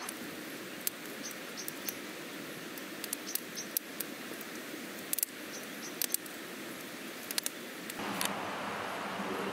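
Wood campfire crackling, with scattered sharp pops over a steady rushing hiss. About eight seconds in, the pops stop and the hiss turns louder and brighter.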